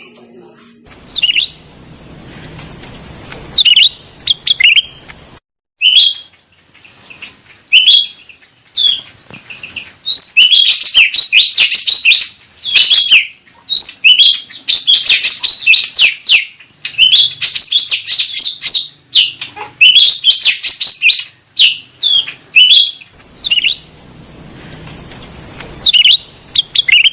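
Cucak rante songbird calling: short sharp chirps at first, then long runs of rapid, chattering notes with brief pauses between them. This is the lure call that keepers use to draw in and stimulate cucak rante birds.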